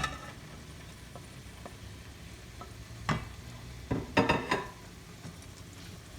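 Okra cooking with onions in oil in a pot, a faint steady sizzle, with a utensil knocking and clattering against the pot as it is stirred: once about three seconds in and several times around four seconds in.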